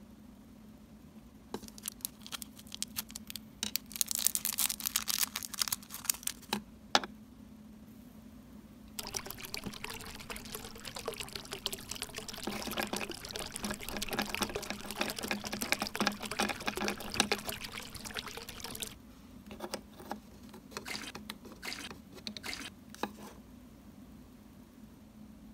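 Thin plastic bag crinkling as small toy carrots are unwrapped. Then about ten seconds of water running from a tap into a small bowl, as if the vegetables are being rinsed. After that come a few light clicks and taps of small plastic pieces being handled.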